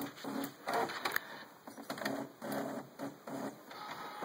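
Brother MFC-J825DW inkjet all-in-one printer running its internal mechanism in a string of short whirring pulses, a few a second, while busy processing.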